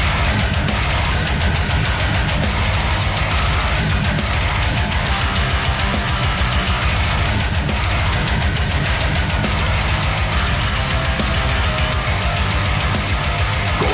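Technical death metal playing loud: heavily distorted guitars over fast, dense drumming.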